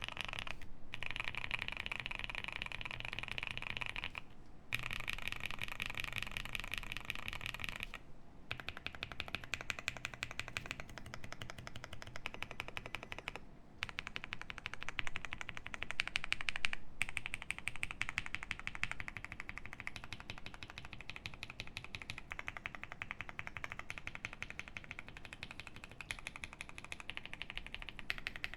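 Fast typing on a QK65 mechanical keyboard with lubed Paco switches on a POM plate and GMK keycaps: a dense, rapid clatter of keystrokes in long runs, broken by brief pauses about a second, four and a half, eight and thirteen and a half seconds in.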